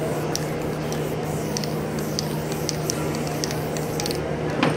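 Aerosol spray paint can spraying onto a canvas, with scattered short clicks and a louder short sound near the end.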